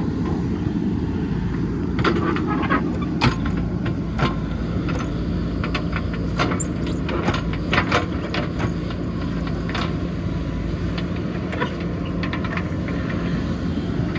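JCB backhoe loader's diesel engine running steadily while working soil, with scattered sharp knocks and clanks.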